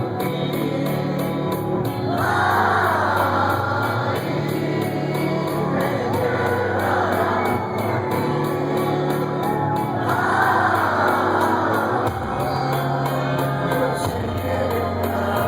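Live rock band playing a song in concert, with wordless sung phrases coming in every few seconds over steady bass notes.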